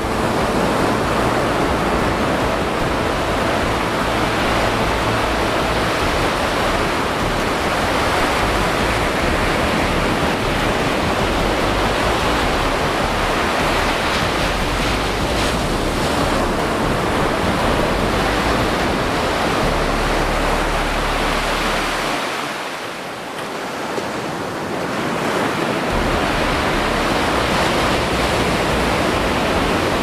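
Waterfall: a steady rush of falling water, with a brief dip in level about three-quarters of the way through.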